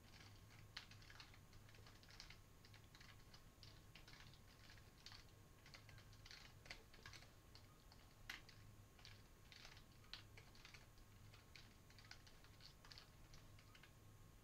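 Faint computer keyboard typing: short key clicks in quick, irregular runs with brief pauses between them.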